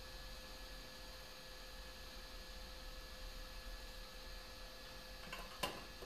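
Hot air rework gun running with a faint steady hum and hiss, with a few steady whining tones. A single sharp click about five and a half seconds in.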